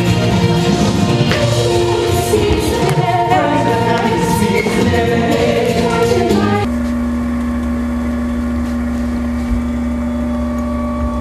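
A group of voices singing over music, cutting off abruptly about six and a half seconds in. Then a steady electric motor hum with one held tone, from a running pottery wheel.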